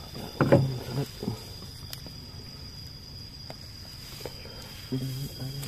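Night insects droning at one steady high pitch, with a few short knocks and brief low-pitched calls near the start and near the end.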